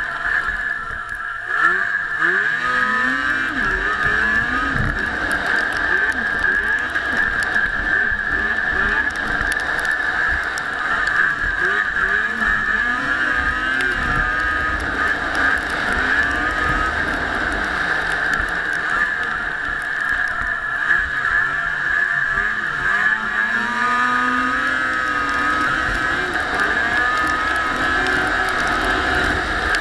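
A vehicle's engine running while it drives along a snowy track, its pitch rising and falling repeatedly over a steady high whine.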